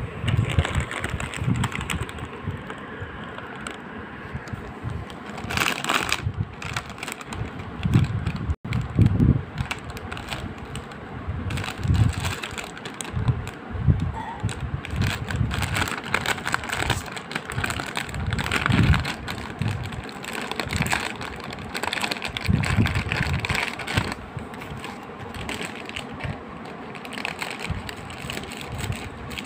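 Foil-plastic snack packets crinkling and crackling as they are picked up and handled, with dull knocks of handling throughout.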